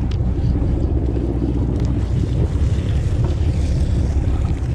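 Steady low rumble of a sportfishing boat's engine, with wind buffeting the microphone.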